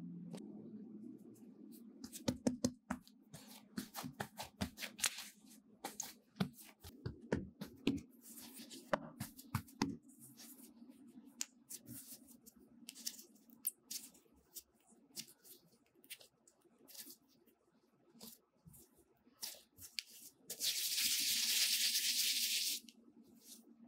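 Hands shaping bread dough into buns on a floured plastic mat: soft irregular taps, pats and rubs as the dough is pleated, folded and rolled. Near the end a steady hiss lasts about two seconds, the loudest sound.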